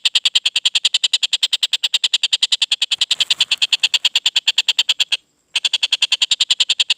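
A tengkek buto kingfisher giving its trotol call: a fast, even run of sharp notes, about ten a second. The run breaks off for a moment about five seconds in, then resumes.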